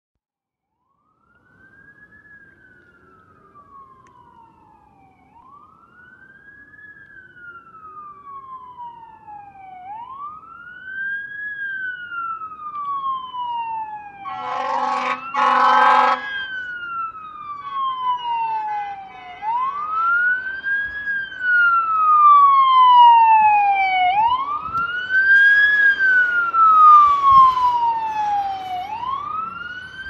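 Fire engine siren wailing, each cycle a quick rise and a slower fall repeating about every five seconds, growing louder as the truck approaches. About halfway through, a car horn honks twice in quick succession over the siren.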